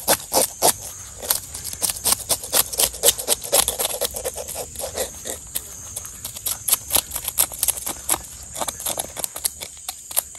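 Hand-held fish scaler scraping the scales off a snakehead fish on a wooden chopping block, in quick repeated rasping strokes, a few each second.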